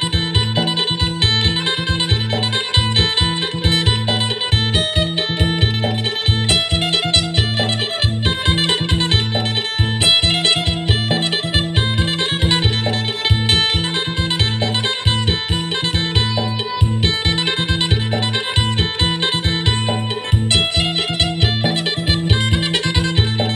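Acoustic phin, the Thai-Lao plucked lute, playing a fast, bright 'sing'-style melody over steady low drone notes with a regular beat.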